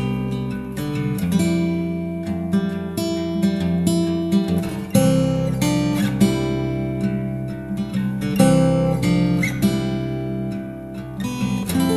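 Background music played on acoustic guitar, a steady run of plucked notes and chords.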